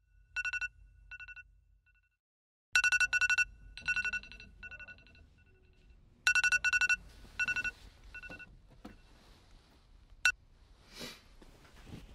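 A mobile phone ringing: a rapid electronic trill on two pitches, sounding in repeated short bursts. The ringing stops after about eight seconds, and a sharp click and a rustle of bedding follow.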